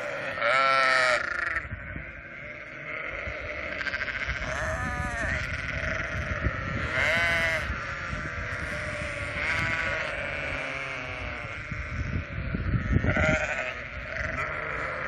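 A flock of sheep bleating: about five loud, drawn-out bleats a few seconds apart over a continuous chorus of fainter bleats, with a low rumble underneath that swells near the end.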